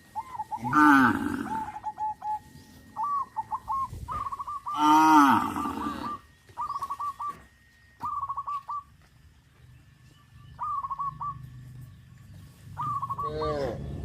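Cattle mooing: two loud moos, the first about a second in and the second about five seconds in, and a third beginning near the end. Between the moos, birds chirp in repeated short phrases.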